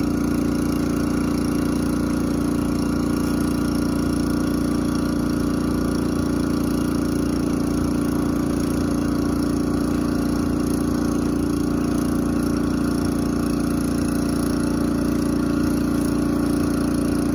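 An engine running at a steady, unchanging speed.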